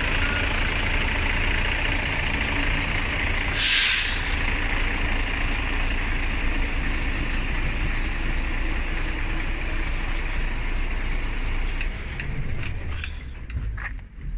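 Volvo B9R bus's diesel engine running steadily, with a short sharp hiss of air-brake air release about four seconds in. Near the end the steady engine sound drops away, leaving a few clicks.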